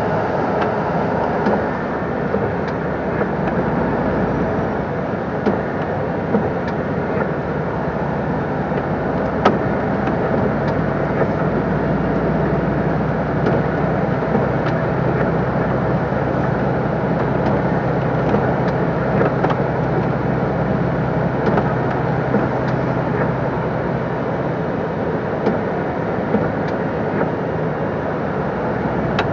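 Cab interior of a moving MAN TGS 26.320 lorry. Its six-cylinder diesel runs steadily under constant road and tyre noise, with occasional faint clicks.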